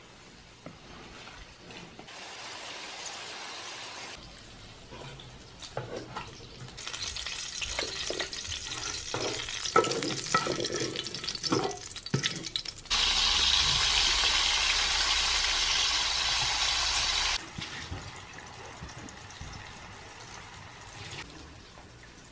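Potato slices frying in hot oil: sizzling, with clicks and scrapes of a utensil as they are stirred and turned, then a loud, steady sizzle for about four seconds past the middle that cuts off sharply.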